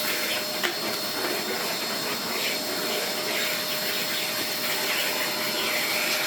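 Vax Air Stretch upright vacuum cleaner running steadily, its motor giving a constant whine over the rush of air.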